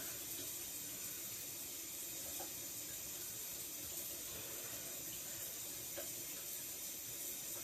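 Steady background hiss, strongest in the high frequencies, with a few faint soft taps spread through it.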